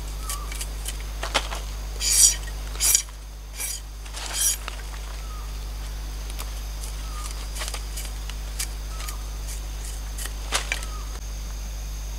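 A knife working thin bamboo strips, splitting and shaving them. It makes a few short, hissing scraping strokes between about one and four and a half seconds in, then only faint ticks over a steady background.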